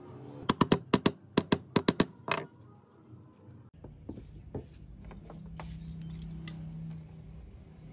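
A hammer tapping a metal pin into the wooden handle of a hedge shear: about ten quick, sharp, ringing strikes in the first two seconds or so. Fainter clicks and knocks follow.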